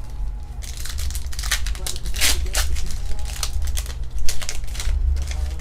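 Foil Pokémon booster pack wrapper crinkling and being torn open in a run of sharp crackles, the longest about two seconds in, over a steady low hum.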